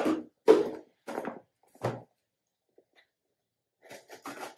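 Four short thunks in the first two seconds as small cardboard boxes of winch parts are handled and set down. Near the end, softer scratching as a knife slits the tape on a box.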